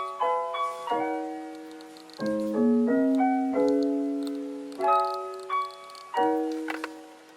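Background piano music: soft chords and melody notes struck every second or so, each left to ring and fade.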